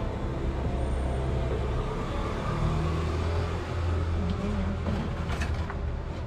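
Steady low rumble of road traffic, a heavy motor vehicle running. A couple of light clicks come about five seconds in.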